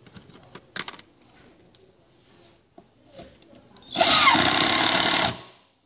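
Cordless drill/driver running for about a second and a half near the end, driving a screw through a metal drawer runner into a melamine drawer side. Before it come a few light clicks and one sharper knock as the runner and screw are handled.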